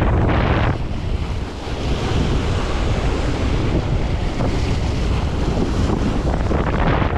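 Wind buffeting the microphone in a heavy low rumble, over the wash of sea waves.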